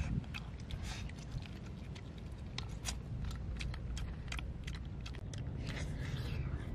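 Close-up eating sounds: a boy chewing cooked eel, with scattered sharp clicks and smacks of mouth and lips over a steady low rumble.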